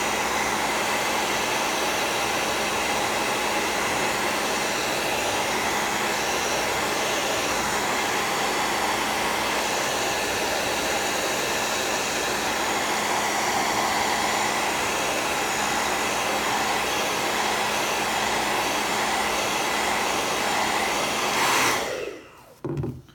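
Handheld hair dryer running steadily on its medium setting: a loud, even rush of air with a faint low hum. It switches off about a second before the end.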